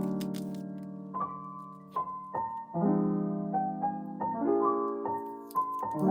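Background music: a gentle piano playing soft, slow chords and single notes that ring and fade.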